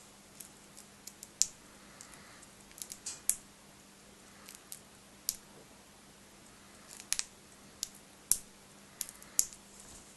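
Lovebird cracking seeds with its beak: irregular sharp cracks and clicks, some in quick pairs and runs, the loudest a few seconds apart.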